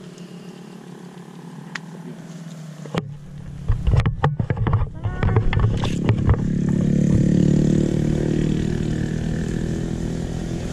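A motor vehicle's engine, likely a motorcycle, running steadily, then swelling louder as it passes, peaking about three-quarters of the way through and easing off a little. Partway through there is a run of sharp crackles and snaps, as of dry brush being pushed through.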